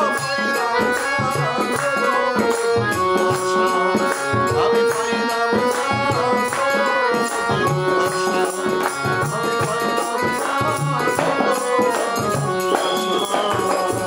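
A man singing a slow, melodic song in long held notes, with rhythmic percussion keeping a steady beat beneath.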